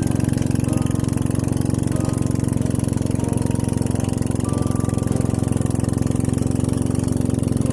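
A small engine running steadily at an even speed with a fast, regular pulse.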